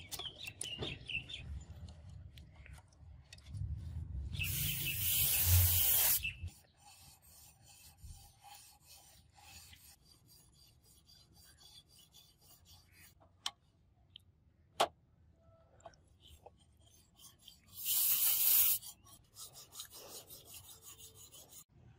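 Sharpening stone on a guided fixed-angle knife sharpener scraping along a steel blade's edge: one long stroke about four seconds in and a short one near the end. Light handling clicks come in between, two of them sharp.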